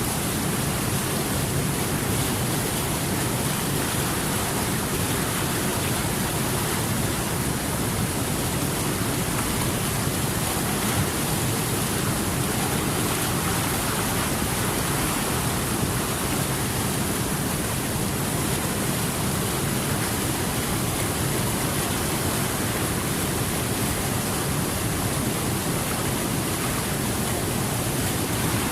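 Steady rushing water: a continuous, even noise that neither swells nor breaks.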